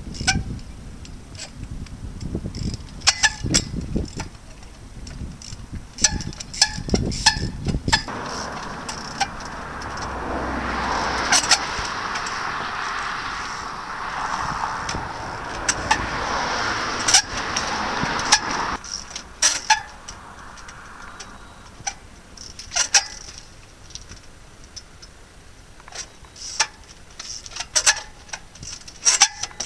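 Trials bike hopping and landing on concrete walls: repeated sharp knocks as it comes down on the concrete. Wind rumbles on the microphone for the first eight seconds, and a rushing noise swells and fades through the middle.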